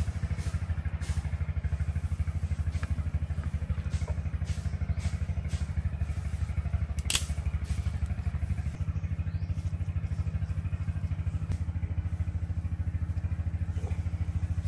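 A small engine running steadily at idle, a fast, even low throb. A single sharp snap about seven seconds in.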